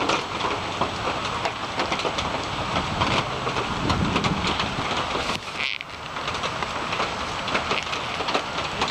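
Heavy rain falling steadily, a dense hiss full of small drop hits on surfaces, with a brief lull a little past halfway.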